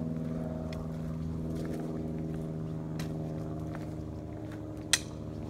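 A steady, low engine drone with a pitched hum, unchanging in pitch. A sharp click near the end.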